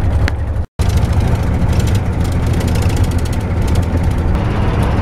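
Steady road and engine noise inside a moving vehicle's cabin, with a low hum underneath. The sound drops out completely for a moment just under a second in, then carries on unchanged.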